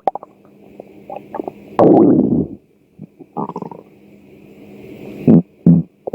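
A hungry, empty stomach growling and gurgling in irregular bursts. The longest and loudest gurgle comes about two seconds in, and two short sharp ones come near the end.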